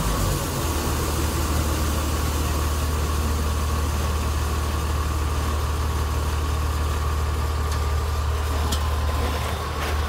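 New Holland combine harvester's engine running steadily, a low even hum with a faint steady whine above it.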